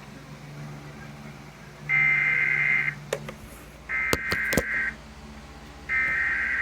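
Emergency Alert System SAME header: three bursts of screeching digital data tones, each about a second long, one every two seconds. The bursts carry the coded alert (event, counties, times) ahead of the attention signal. A few sharp clicks sound around the second burst.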